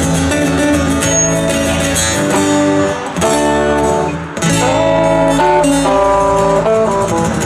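Live band with strummed acoustic guitar, electric guitar and drums playing an instrumental passage of a song.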